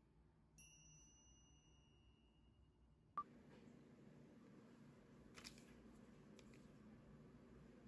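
Near silence: a faint, steady high tone for about two and a half seconds, then a soft click, after which only a faint hiss with a few weak ticks remains.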